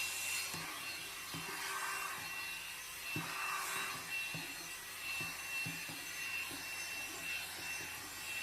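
Revlon One-Step hot air brush running: a steady high motor whine over a hiss of blown air. Soft, irregular rubbing strokes come every half second or so as the brush is drawn through hair.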